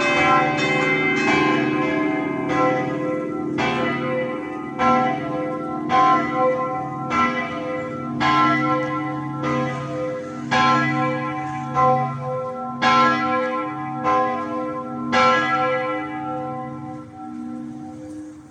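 Several church bells ringing, the strokes thinning to about one a second as the peal winds down. The last stroke comes about fifteen seconds in, and its hum fades away.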